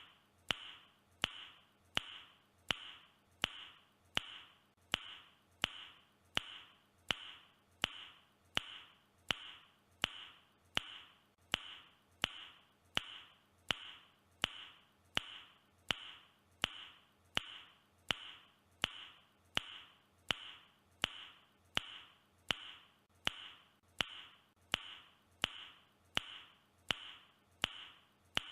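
A man's mouth click, repeated over and over at an even pace of about three clicks every two seconds. Each click is sharp with a brief hollow ring after it.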